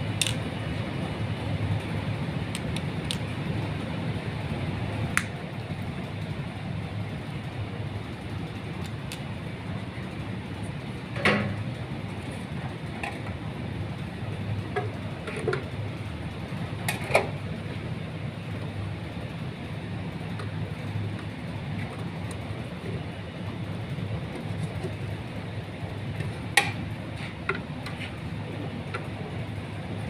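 Steady low background rumble of machinery, with a handful of sharp metallic clicks and knocks from hand tools working the terminals of a steel disconnect switch enclosure. The loudest knocks come about eleven and seventeen seconds in.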